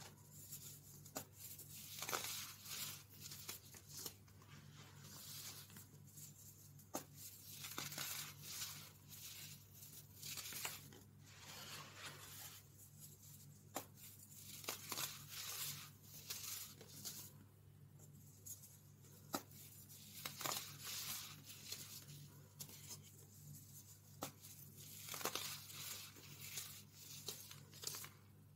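Molded baking soda blocks crushed and snapped apart by hand into loose powder: a run of irregular crunches and crumbling crackles with sharp snaps. A faint steady low hum runs underneath.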